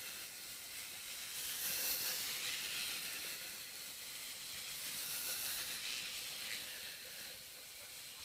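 Steady hiss of background noise that swells and fades slightly, with no distinct event standing out.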